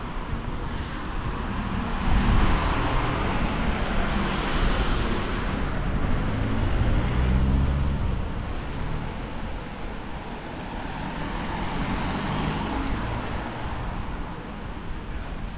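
City street traffic: vehicles passing, their noise swelling and fading twice over a steady low rumble.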